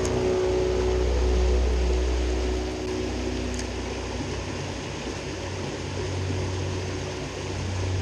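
Water rushing over a shallow, rocky creek riffle, heard close up, with a steady deep rumble under the splashing.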